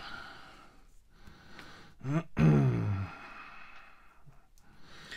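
A man's voiced sigh, falling in pitch, about two seconds in and lasting about a second, with faint breathing before it.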